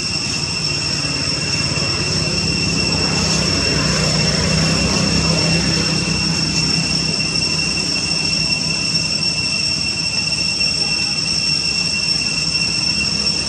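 Steady outdoor drone: a constant high-pitched whine over an even low rumble, swelling slightly a few seconds in.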